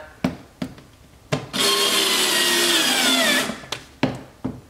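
Small cordless power driver snugging up fasteners. The motor runs once for about two seconds from a second and a half in, its pitch sagging slightly as it takes up the load, with a few sharp clicks before and after.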